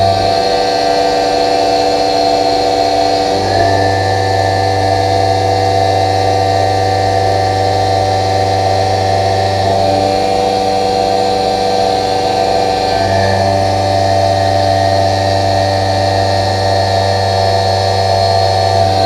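Tormach 1100MX CNC mill's spindle running a 3/8-inch Kennametal HARVI III end mill at 5800 RPM, side-milling 1018 steel at 100 inches per minute: a steady, loud machining whine made of several steady tones. Its low hum drops out for about three seconds near the start and again for a few seconds in the middle, then returns.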